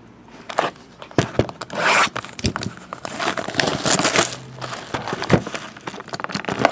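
Wrapper of a trading card pack being torn open and crinkled by hand: irregular crackling and rustling with sharp little tears throughout.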